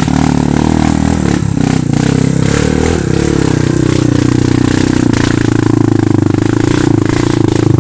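Off-road motorcycle engine running hard under load at steady high revs, close by, with scattered sharp clattering knocks over it.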